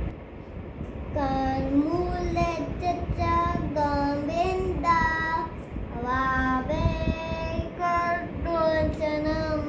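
A young boy singing a devotional prayer in long, held notes, starting about a second in, over a steady low background hiss.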